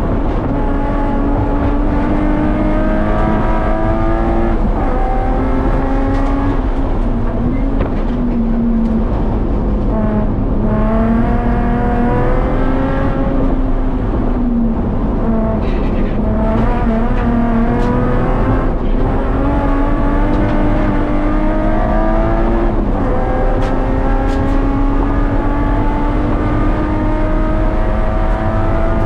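A 1994 BMW 325is's S52 straight-six engine at racing load, heard from inside the cabin. Its note climbs steadily through each gear and drops at each gear change, over and over.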